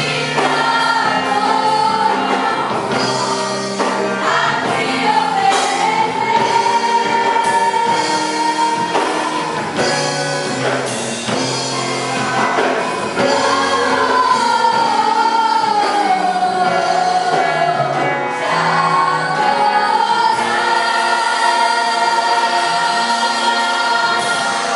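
Gospel choir singing a worship song with musical accompaniment: a sung melody line rising and falling over sustained chords.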